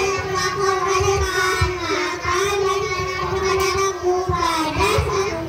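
A group of young children singing together in unison, holding long notes that slide between pitches.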